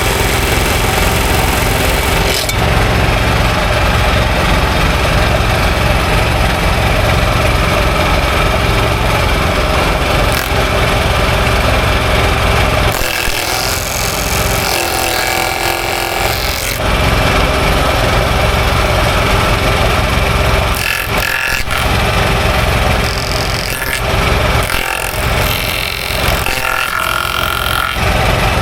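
An engine running with a steady low firing rhythm, its sound changing several times in the second half as the load or speed shifts.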